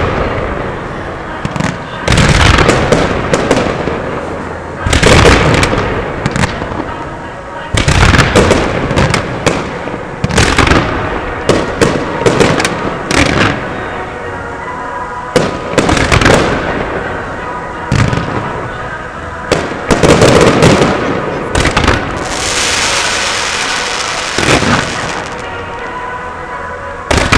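Fireworks going off in quick succession: sharp bangs with echoing tails, often several within a second, and a few seconds of high hissing crackle near the end.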